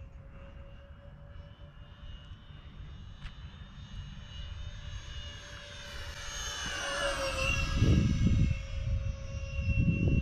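Whine of an E-flite A-10 Thunderbolt II RC jet's twin 64mm electric ducted fans, growing louder as the model approaches and dropping in pitch as it passes, about seven seconds in. Gusts of wind buffet the microphone after the pass.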